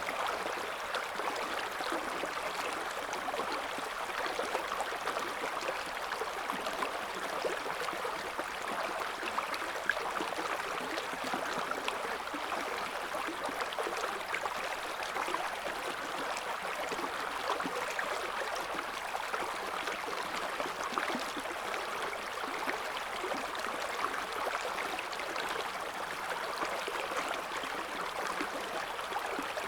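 Shallow river current flowing steadily over stones, a constant rushing with fine gurgles and splashes.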